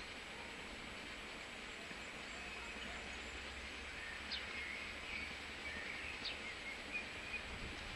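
Small birds chirping and twittering, several short calls in the second half, over a steady background hiss and low rumble of outdoor ambience.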